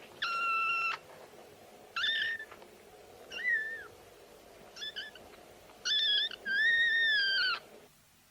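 Cat meowing six times in a row: short, high calls, some flat and some rising and falling in pitch. The last call is the longest.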